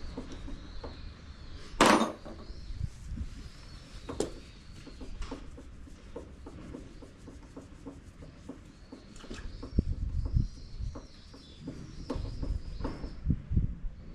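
Scattered knocks and clicks of hands working with tools and parts, with one sharp, loud knock about two seconds in and heavier thuds near the end. Small birds chirp repeatedly in the background.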